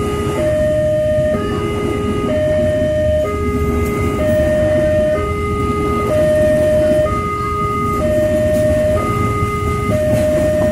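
Level-crossing warning alarm sounding a two-note electronic tone that steps evenly between a lower and a higher pitch, each note held just under a second. Under it runs the steady low rumble of the passing passenger train's coaches on the rails.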